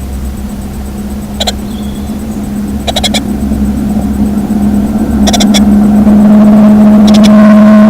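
A steady low motor hum grows louder, gaining a higher whine in the second half. Short, high bird chirps break through about six times, in ones and quick clusters.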